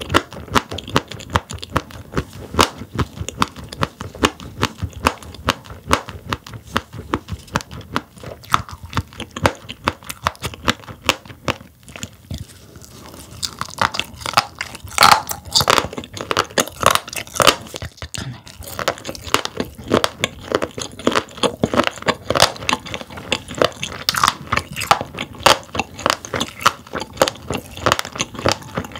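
Close-miked chewing of sailfin sandfish roe. The firm eggs crunch and pop in a rapid, crackling stream of small clicks, with a brief lull about halfway through.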